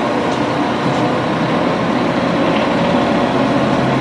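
Running water rushing steadily as a toy is rinsed clean.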